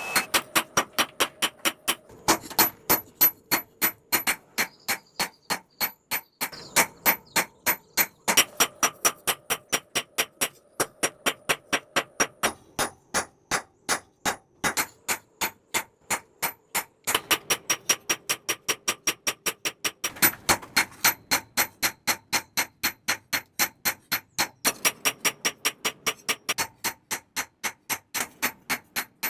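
Hammer blows on steel on an anvil, a fast even run of about three to four strikes a second with a bright metallic ring, pausing briefly every few seconds.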